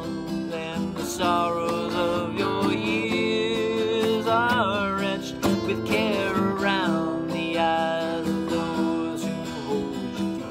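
Acoustic guitar strummed, with a man singing long held notes over it.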